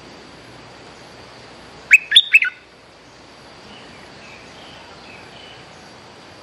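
A caged decoy bulbul gives one short, loud burst of three or four quick notes about two seconds in. Fainter bird notes follow a second or two later, over a faint steady high hum.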